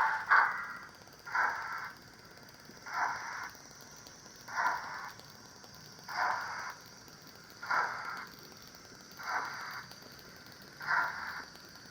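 Sound decoder of a Hornby Britannia 4-6-2 model steam locomotive playing slow, evenly spaced steam exhaust chuffs, about one every second and a half, as the model moves off slowly. A loud hiss cuts off right at the start.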